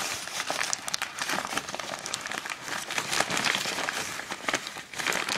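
Plastic poly shipping mailer crinkling and crackling in the hands as it is torn open: a dense run of irregular crackles.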